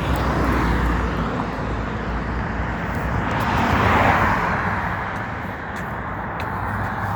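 Road traffic: a passing vehicle's noise swells to a peak about four seconds in and fades, over a steady low rumble.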